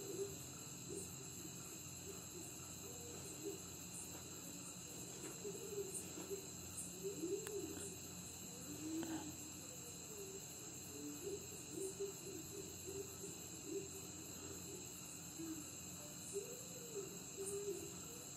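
Crickets trilling faintly and steadily at a high pitch, with faint low wavering sounds coming and going underneath.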